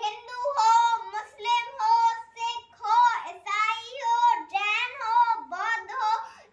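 A young girl singing solo in a high voice, with short held notes and no accompaniment.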